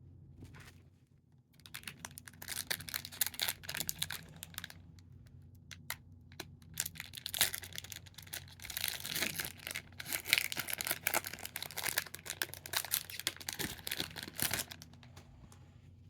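Wrapper of a trading card pack being torn open and crinkled, in two long spells of crackling rustle.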